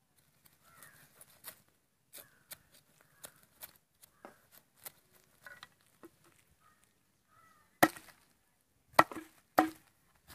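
Knife chopping on a wooden cutting board: a run of light taps and clicks, then three heavy chops close together near the end.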